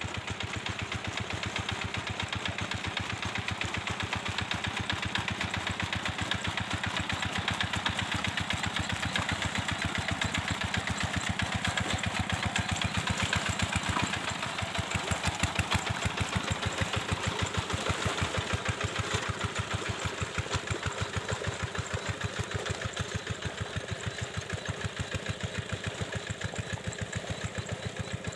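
A paddy-field tractor engine running steadily, with rapid, evenly spaced firing beats. It gets somewhat louder in the middle and eases off a little later on.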